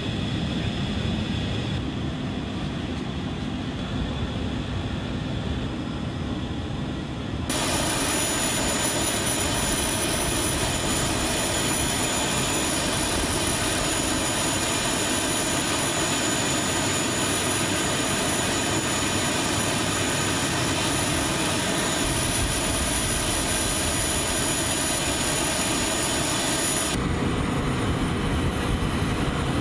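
Airbus A400M Atlas turboprop engines running, a steady drone heard first from inside the flight deck. About seven seconds in it becomes louder from outside on the ramp, with a high-pitched turbine whine over the drone, and the highest whine drops away near the end.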